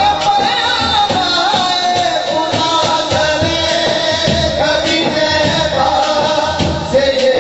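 Male singer performing a devotional Punjabi song into a microphone, in long ornamented melodic lines over a percussion beat, amplified through a PA.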